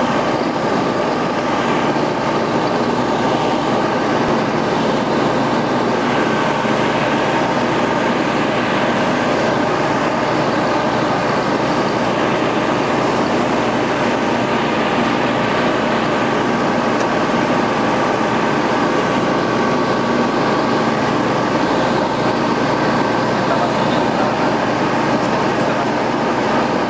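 Ultralight aircraft's engine and propeller running steadily in flight, heard from inside the cockpit as an even drone with a rush of air.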